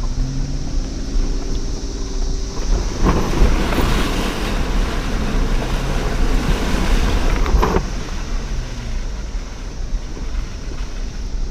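An off-road vehicle's engine revving up, then a loud rush of splashing water and mud for about five seconds as it drives through a mud pit. The rush cuts off suddenly, leaving the engine running under wind noise.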